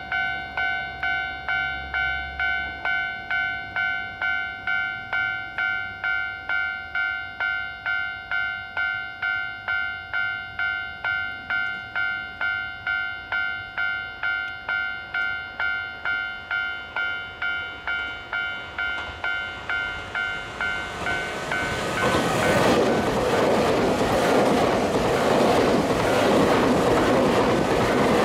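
Japanese level-crossing warning bell ringing steadily, about two dings a second. About 22 seconds in, a Nankai eight-car limited express made up of 11000 series and 30000 series electric cars passes close by. Its running noise rises and drowns out the bell.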